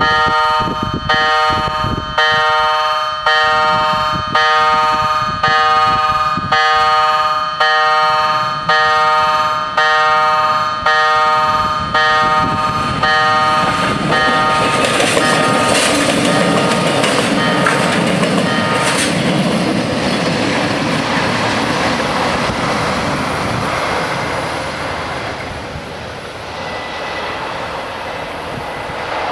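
Level-crossing warning bells ringing in strokes about once a second, stopping about halfway through. A loud, steady rushing rumble then takes over for about ten seconds and eases off near the end.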